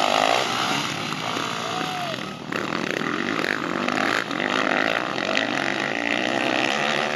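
Dirt bike engines revving up and down, their pitch rising and falling, with an abrupt change in the sound about two and a half seconds in.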